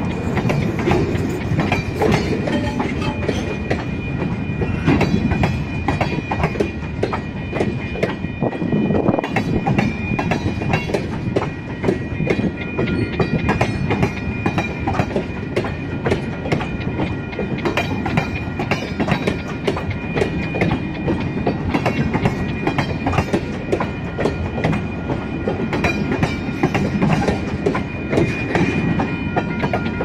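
Freight cars of a passing freight train (covered hoppers and tank cars) rolling by close at speed: a steady rumble with continuous clickety-clack of wheels over the rail joints. A steady high-pitched tone rings above it, stronger in the second half.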